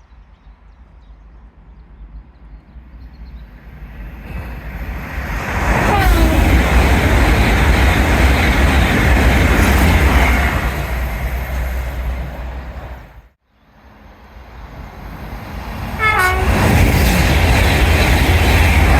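A fast train rushing through the station, its horn sounding and falling steeply in pitch as it passes. The sound cuts off abruptly about 13 seconds in, then a second pass builds up with the horn again dropping in pitch.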